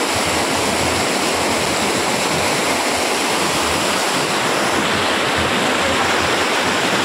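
Fast-flowing muddy floodwater rushing and churning through a canal, a steady loud rush of water.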